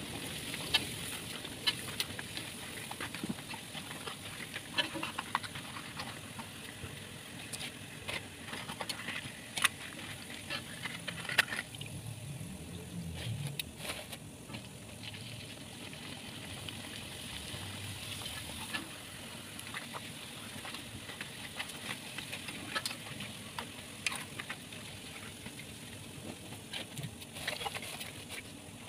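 Opak crackers frying in hot oil: a steady sizzle with irregular sharp crackles and pops.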